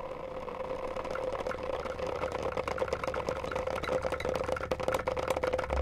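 A loudspeaker sounding a steady mid-pitched tone over a low hum, while wooden mallets resting on its cone rattle against it in rapid, irregular clicks.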